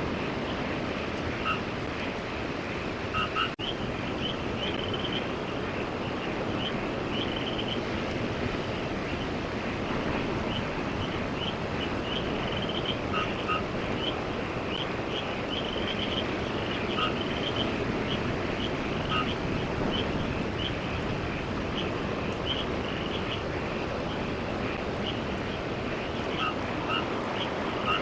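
Steady rush of surf and wind, with frogs giving short chirping calls over and over throughout.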